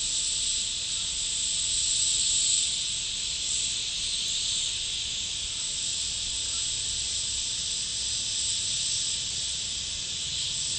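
Aerosol spray paint cans hissing in a steady, continuous spray.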